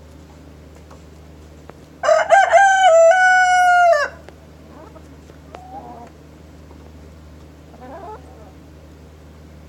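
Rooster crowing once, a loud cock-a-doodle-doo about two seconds long starting about two seconds in, followed by a couple of faint, short chicken calls. A steady low hum runs underneath.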